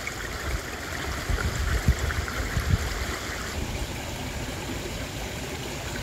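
Small woodland stream running over stones: a steady rush and babble of water, with a few brief low bumps a couple of seconds in.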